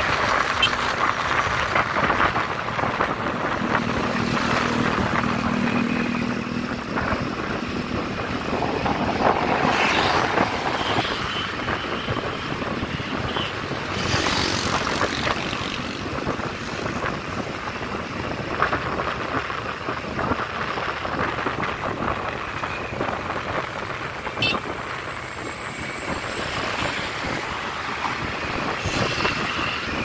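Riding on a motorcycle: small motorbike engines running steadily amid continuous road and wind noise.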